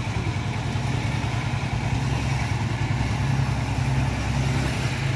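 Engine of a soil-boring drill rig running steadily at idle, a low, even hum.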